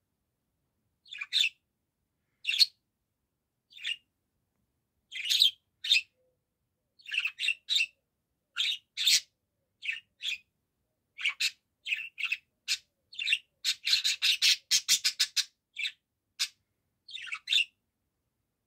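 Budgerigar chirping in short bursts with pauses between, breaking into a quick run of chirps about three-quarters of the way through.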